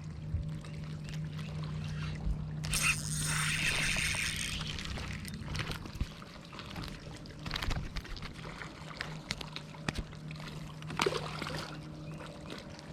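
Water trickling and sloshing around a fishing boat, over a steady low hum. A burst of hiss comes about three seconds in and lasts nearly two seconds, with a few light clicks.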